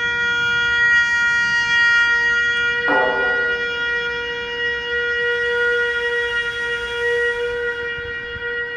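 Microtone-Duplex trumpet and bowed musical saw holding long, steady, overlapping tones in a free improvisation; a new lower note enters sharply about three seconds in and is held under the higher tones.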